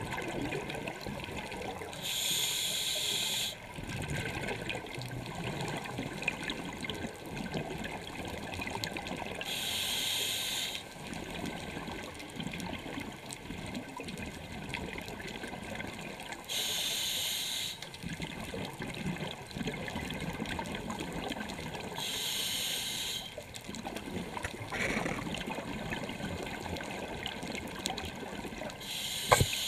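Scuba diver breathing through a regulator underwater: a bubbly hiss of exhaled air about every six to seven seconds, with a low water rumble between the breaths.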